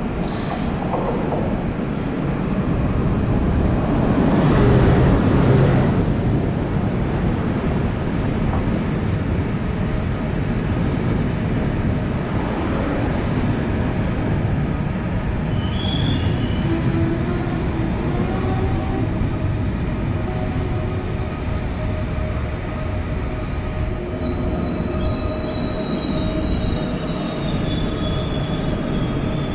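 An electric-hauled passenger train arriving along the platform track. The rumble is loudest as the locomotive passes about five seconds in, then the coaches roll by with their wheels rumbling. From about halfway, thin squeals from the braking wheels come in, some holding steady and some slowly falling in pitch as the train slows.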